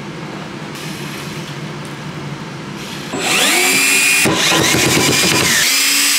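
Power drill driving wood screws into pine blocks. It starts about three seconds in and runs in short bursts, its whine rising as the motor speeds up.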